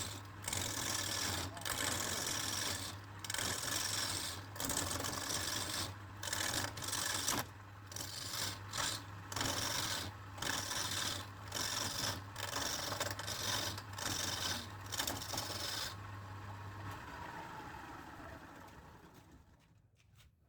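Wood lathe running with a steady motor hum while a tool scrapes the spinning wood in repeated passes, about one a second. The scraping stops about three-quarters of the way through, then the motor is switched off and the lathe spins down with a falling hum, fading nearly to quiet at the end.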